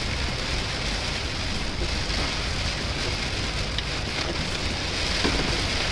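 Heavy rain drumming steadily on a moving vehicle, heard from inside the cabin, with a low road and engine rumble underneath.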